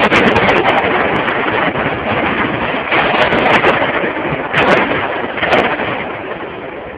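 Movie-set special-effects explosion: a loud rushing noise with sharp cracks scattered through it, most at the start and a few more around the middle, dying down over the last couple of seconds.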